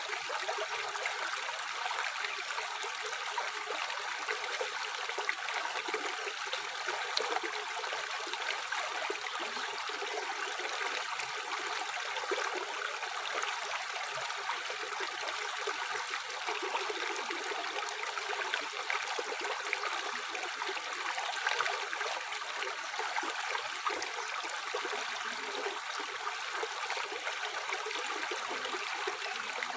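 Tap water running steadily into a sink, a continuous splashing hiss without pauses.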